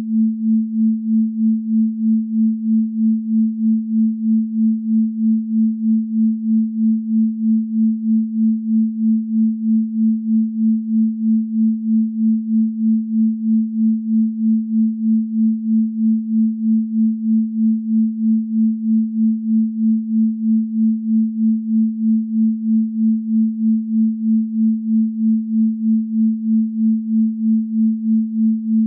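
A continuous pure sine tone at 221.23 Hz, the 'Venus frequency' (a low A), held steady in pitch with an even pulsing in loudness a couple of times a second.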